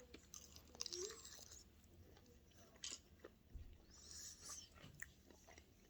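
Near silence with faint chewing and mouth clicks from someone eating.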